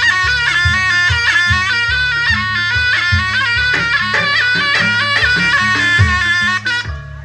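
Jaranan gamelan music: a reedy, nasal wind instrument plays a fast, ornamented melody over steady drum strokes and low gong-like beats. The music breaks off shortly before the end.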